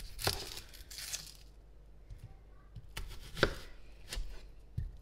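Chef's knife slicing through a red onion on a wooden cutting board. Crisp cutting noise through the onion layers is followed by a few sharp knocks as the blade meets the board, the loudest about three and a half seconds in.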